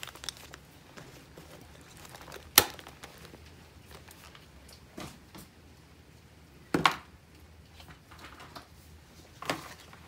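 A few sharp clicks and knocks from handling a ring-bound planner and its pages: four separate strokes, the loudest about two and a half seconds in and near seven seconds.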